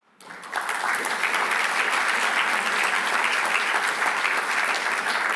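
Audience applauding, swelling up within the first half second and then holding steady.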